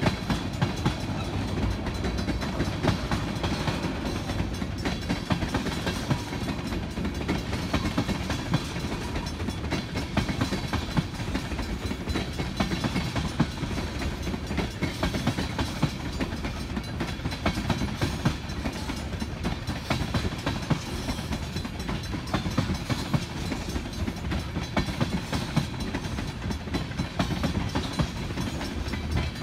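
Freight cars of a Wheeling & Lake Erie train rolling past in a steady, unbroken run, steel wheels clicking over the rail joints over a low rumble.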